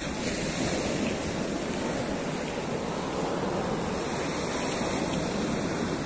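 Black Sea surf: small waves breaking and washing up over a sandy beach as a steady wash of noise.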